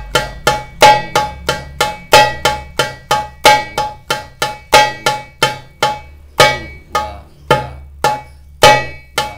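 Darbuka rim strokes played with the left-hand fingers in an even, steady run of about three strokes a second, with every fourth stroke accented louder. This is a four-stroke finger-loosening drill.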